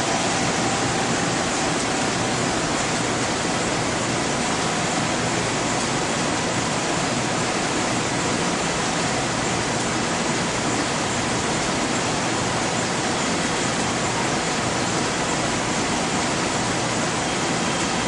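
Steady, even rushing hiss of equipment fans and air handling, unchanging throughout, with a faint steady tone near the start and another faint high tone later.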